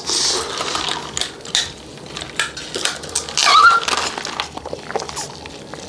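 Close-miked mouth and handling noises while eating, short clicks and hisses, with a louder sip through a drinking straw from a paper cup about three and a half seconds in.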